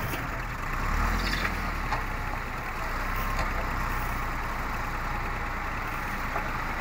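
Diesel tractor engine running steadily under load as its front loader lifts and tips a bucket of soil, with a few faint knocks in the first half.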